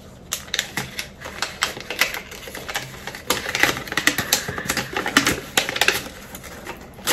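White paper packaging being pulled open by hand, rustling and crinkling in a quick, irregular run of small crackles that is busiest in the middle.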